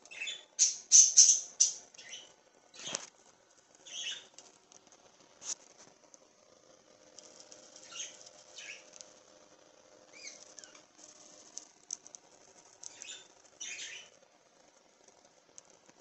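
Pet budgerigars chirping and chattering in short, scratchy high-pitched bursts, busiest about a second in, with a single sharp knock about three seconds in.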